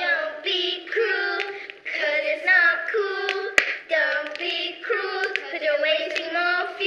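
A group of children singing together in high voices with held notes, with sharp hand claps here and there, the loudest about three and a half seconds in.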